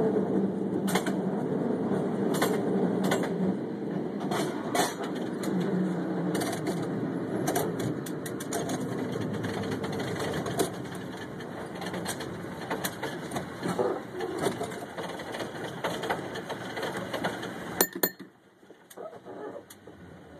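San Francisco cable car running along its track: a steady rumble and hum from the wheels and the cable slot, with many scattered clicks and clacks. About eighteen seconds in, a sharp clack comes, and the running noise drops away to a low level.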